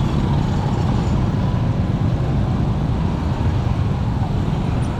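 Steady street traffic noise, a dense low rumble without distinct events.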